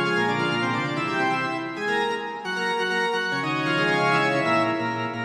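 Organ music: sustained, many-voiced chords with notes moving every fraction of a second.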